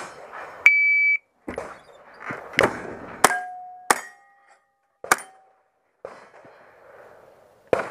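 Shot timer's start beep, then four gunshots over about two and a half seconds, some followed by a brief metallic ring from steel targets being hit.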